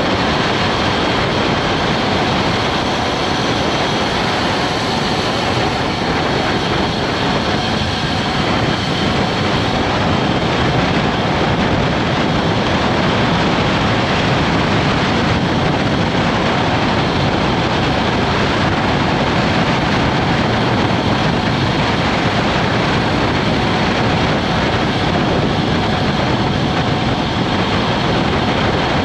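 Steady wind rush buffeting a GoPro Hero 9 microphone as a road bike is ridden along asphalt, an even roar with no breaks.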